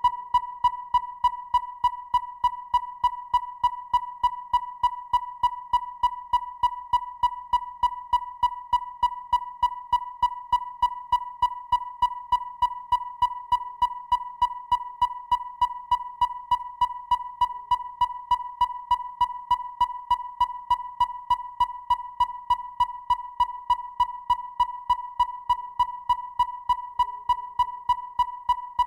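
Electronic robot-style beeping: one steady high-pitched tone pulsing evenly, about three beeps a second, without change.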